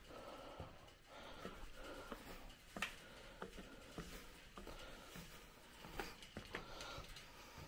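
Faint, irregular footsteps and taps on the fire tower's stairs during a descent, with soft breathing between them.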